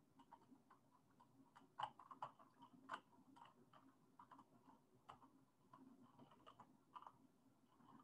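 Faint, irregular clicking of computer keyboard keys being typed, over a faint steady low hum.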